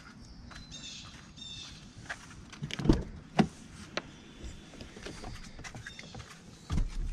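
Footsteps on pavement, then the pickup truck's door latch clicks and the door is pulled open, with a few sharp knocks and a heavier thump near the end.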